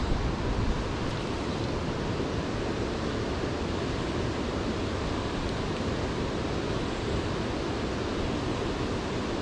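Steady rush of a clear river flowing over stones in a shallow run.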